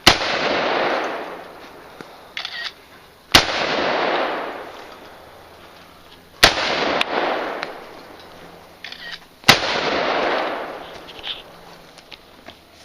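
Colt AR-15 rifle fired four single shots, about three seconds apart, each shot followed by a long echo that fades over a couple of seconds.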